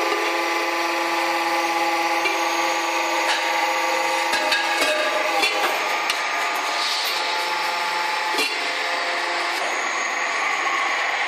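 Steady workshop machine noise from a deep drawing press forming fire extinguisher cylinders, with a hum of several steady tones that stops about five seconds in, and scattered clicks and knocks.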